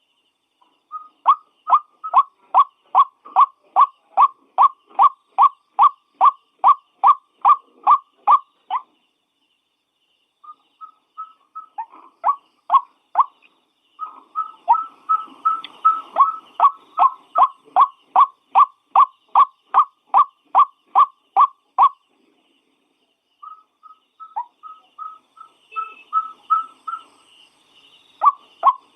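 White-breasted waterhen (ruak-ruak) calling: a long series of short, repeated notes, each dropping slightly in pitch, at about two to three a second. The notes come in four bouts separated by short pauses.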